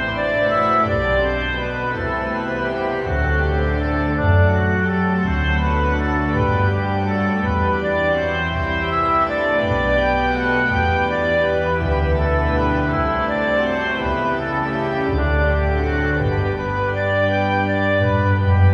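Background music of slow, sustained organ-like chords, the held notes changing every second or two without any beat.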